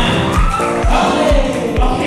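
Upbeat song with a singing voice over a steady kick-drum beat, about two beats a second.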